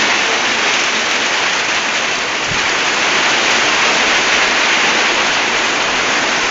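Hailstorm: hail and heavy rain pelting down in a dense, steady hiss.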